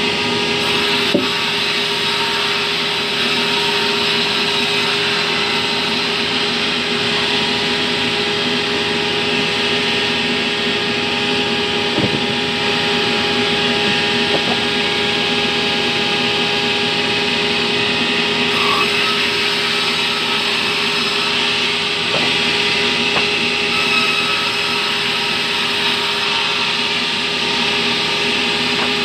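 Vertical band sawmill running steadily as it rips a log of terap, a fibrous timber, lengthwise: a constant machine hum under the hiss of the blade in the wood. A few short knocks come from the timber being handled.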